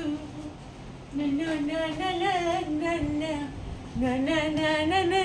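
A woman's voice singing a slow, gliding melody in held notes, one phrase starting about a second in and another about four seconds in.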